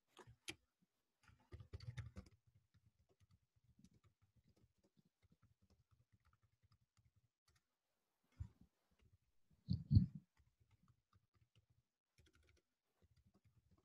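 Faint, scattered clicks and knocks, like handling or keyboard noise on a computer microphone: a small cluster about two seconds in and the loudest about ten seconds in, quiet between.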